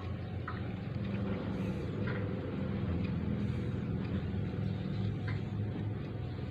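Domestic cat purring steadily while being stroked, a continuous low rumble close to the microphone.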